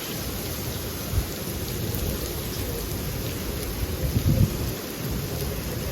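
Steady heavy rain during a thunderstorm, with low rumbles of thunder: a short one about a second in and a longer, louder one around four seconds in.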